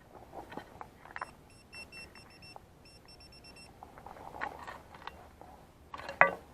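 A metal detector gives two runs of short, rapid high beeps, about six a second, signalling a metal target in the dug soil. Faint scraping and clicks of digging come in between, and a short sharp sound near the end is the loudest thing.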